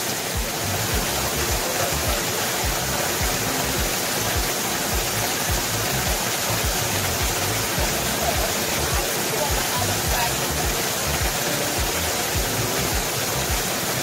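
Waterfall rushing steadily, with background music carrying a steady low beat over it.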